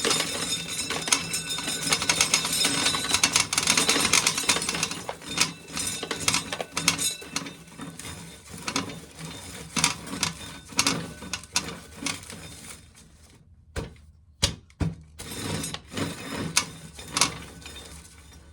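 Corn sheller stripping kernels off an ear of corn: a dense clattering rattle for about the first five seconds, thinning to scattered clicks and rattles, with a brief lull near the end.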